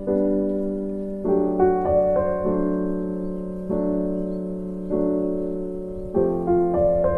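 Background music: slow electric piano playing sustained chords that strike roughly every second and fade, with a few quick runs of notes between them.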